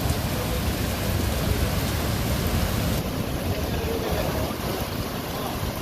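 Passenger train running, a steady rushing rumble with no separate knocks, easing slightly about halfway through.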